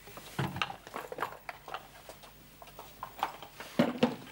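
A cloth tablecloth rustling and flapping as it is shaken out and spread over a table, with scattered light knocks and clicks. The loudest flap comes near the end.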